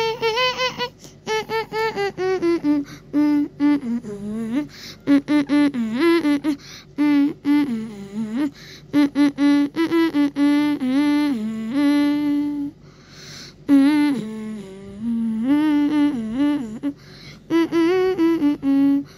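A voice humming a wordless tune in short held notes that step up and down and waver in pitch, with a brief pause about two-thirds through.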